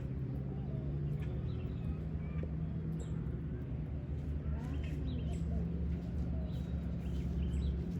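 Backyard hens clucking and chirping softly in short calls, over a steady low hum.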